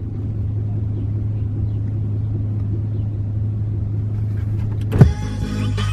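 Car running with a steady low rumble. About five seconds in, a single sharp knock cuts it off and music begins.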